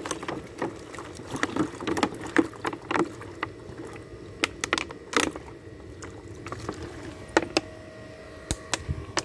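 Water poured from a large plastic bottle into a plastic bowl, glugging and splashing, with irregular sharp crackles from the thin plastic bottle as it is handled.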